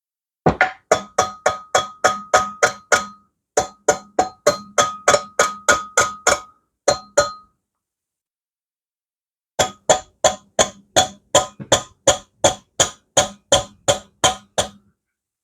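Hammer strikes on metal, about three to four a second, each ringing briefly. They come in three runs, with a pause of about two seconds before the last.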